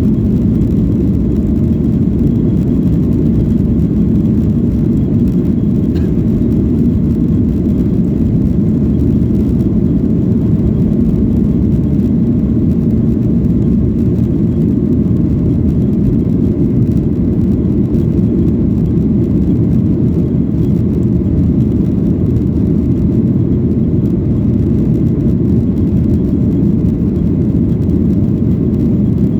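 Steady low rumble of a passenger plane's engines and rushing air, heard from inside the cabin.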